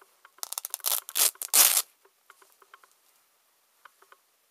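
Hook-and-loop (Velcro) fastener ripping apart as a patch's hook backing is peeled off a jacket's loop panel: a quick series of rips lasting about a second and a half, loudest at the end.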